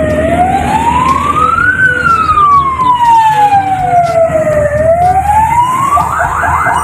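Ambulance siren wailing, its pitch rising and falling slowly, then switching to a fast yelp about six seconds in.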